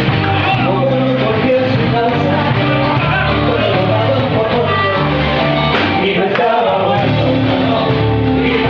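Rock song played by a band with a singer and guitar, loud and steady; it cuts off suddenly at the very end.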